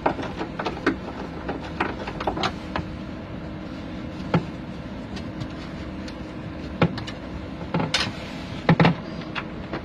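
Irregular clicks and knocks of gloved hands working the screws of an aircraft galley's access panel, over a steady hum.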